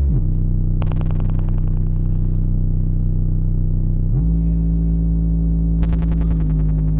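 Live experimental electronic music: a deep, sustained synthesizer drone that slides down in pitch at the start and up again about four seconds in. Two bursts of rapid clicking, about one second and six seconds in, each fade out over a second or so.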